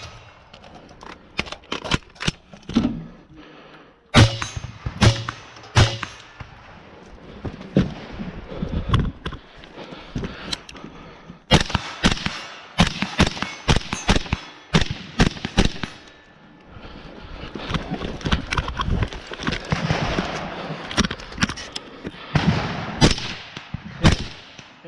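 Rifle shots fired in quick strings during a timed two-gun stage, with gaps between the strings filled by a rough rustling noise.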